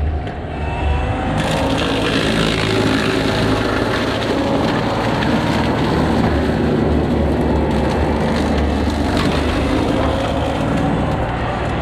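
Excavator engine running under load while its boom-mounted rotary brush cutter chews through heavy brush, with woody crackling and splintering. The shredding noise picks up about a second and a half in and carries on steadily.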